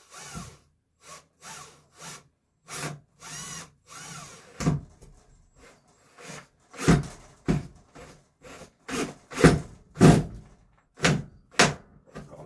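Power drill driving stainless screws into wood in a series of short trigger bursts, the motor's pitch rising and falling with each, the bursts getting louder in the second half.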